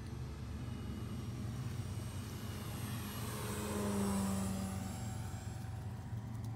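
Ultimate AMR 60 radio-control aerobatic biplane making a low, close flyby, its engine and propeller swelling to a peak about four seconds in and then dropping in pitch as it passes and moves away.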